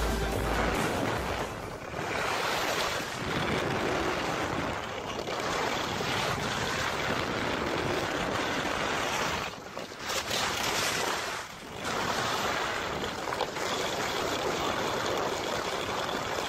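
Wind rushing over the camera microphone and skis hissing over packed snow during a fast downhill run, a steady rough noise that drops away briefly twice near the middle.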